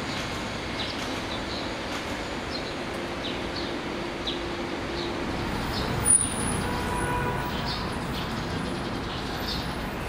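Steady urban background rumble with birds chirping, short high chirps repeated every second or so. A brief sharp click about six seconds in is the loudest moment.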